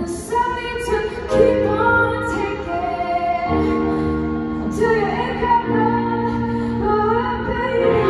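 Rock band with a female lead singer sound-checking a slow song through a stadium PA: a sung melody over sustained chords that change about every two seconds.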